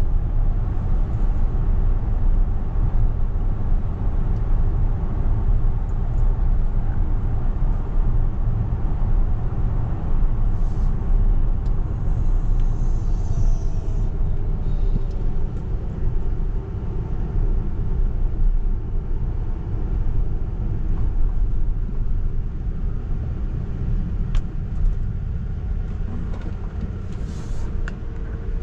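Steady low road rumble and tyre noise inside the cabin of a Tesla Model X 100D electric SUV driving at city speed, with a faint whine that drops in pitch about halfway through.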